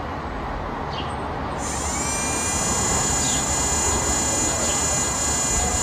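A small motorcycle engine running with a low rumble. About a second and a half in, a high-pitched whine starts suddenly, rises quickly and then holds steady. A few faint bird chirps.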